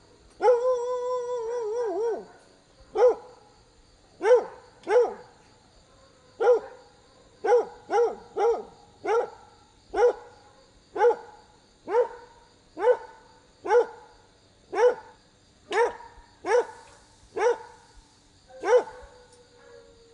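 Dog barking: a drawn-out wavering whine-like call, then a steady string of about eighteen short barks, roughly one a second.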